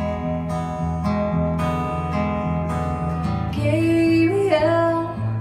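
Solo acoustic guitar strummed and picked through chord changes. About three and a half seconds in, a woman's singing voice comes in over it, holding and bending a note.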